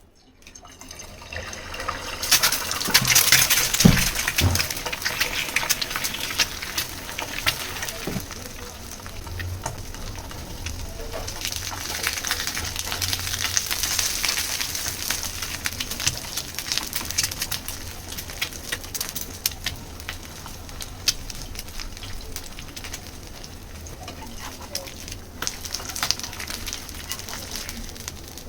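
Egg frying in hot oil in a pan: a steady sizzle full of crackles and pops. It swells about two seconds in and is loudest for the next few seconds, with a couple of low knocks about four seconds in.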